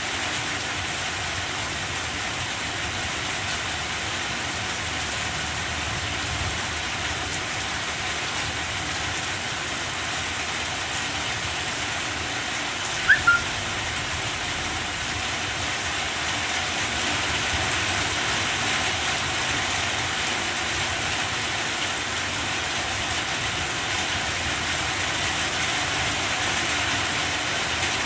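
Steady rain falling on banana plants, an even hiss that grows a little louder in the second half. About halfway through, a short high chirp stands out briefly.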